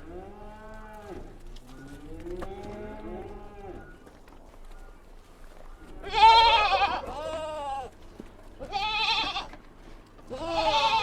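Kid goats bleating: two soft calls in the first few seconds, then three louder, wavering bleats from about six seconds in, the first of them the loudest.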